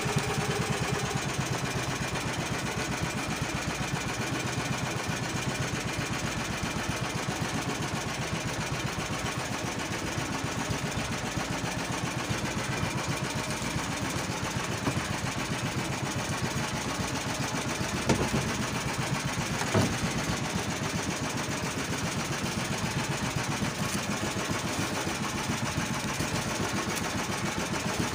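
Small gasoline inboard engine of an outrigger fishing boat running steadily with an even, rapid firing beat. Two short sharp knocks stand out in the second half.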